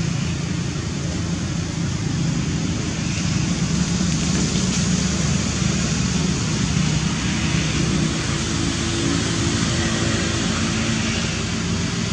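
Steady, even noise with a low rumble; a faint low hum joins about two-thirds of the way through.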